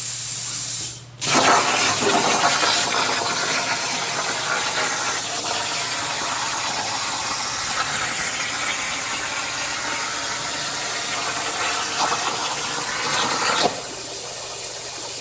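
Plasma cutter arc hissing steadily while cutting steel, starting suddenly about a second in and cutting off near the end.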